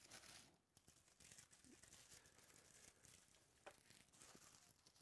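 Near silence with a faint rustle of trading cards and pack wrappers being handled, and a couple of faint ticks later on.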